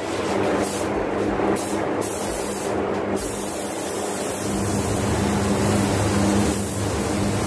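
Compressed-air paint spray gun hissing steadily as paint is sprayed onto a car hood, over a steady low hum.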